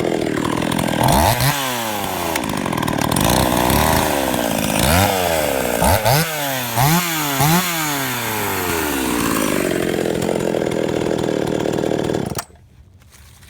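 Husqvarna 44 two-stroke chainsaw running, revved up and back down in about six quick throttle blips, then held steady before the engine is switched off near the end. The saw is in good running order.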